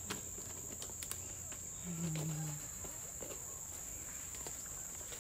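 Crickets chirring steadily in a high-pitched chorus, with a few light ticks and a brief low-pitched sound about two seconds in.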